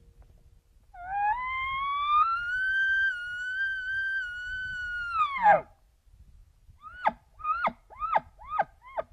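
Elk bugle: a high whistle that rises in pitch, holds for about four seconds and then drops steeply, followed by five short falling chuckles.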